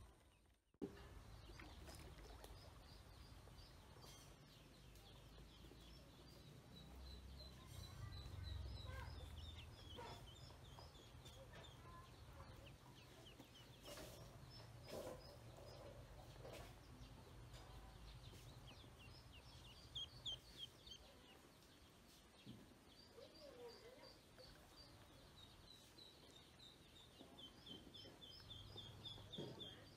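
Ducklings peeping: faint, quick runs of short, high peeps, repeated many times, over a low steady rumble.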